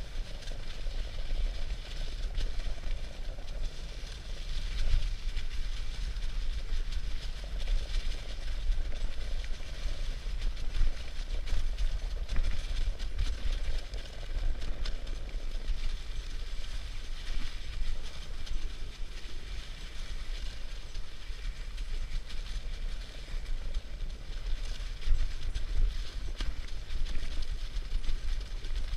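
Dog sled running fast over snow: a steady hiss of the runners on the trail, with a low wind rumble on the microphone.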